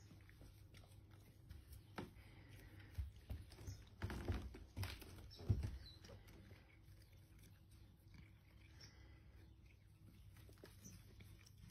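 Cat biting and chewing cat grass: a scatter of short clicks and crunches, busiest between about four and six seconds in.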